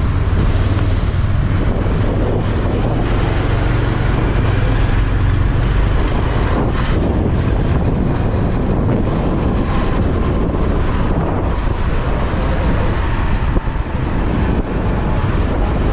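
Steady wind noise on the microphone from riding pillion on a moving motorcycle taxi, mixed with the motorbike's engine and road noise.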